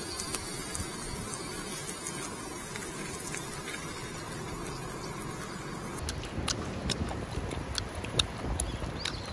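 Meat and onion slices sizzling quietly on a wire-mesh barbecue grill, a steady crackling hiss. About six seconds in it cuts to a few scattered light clicks.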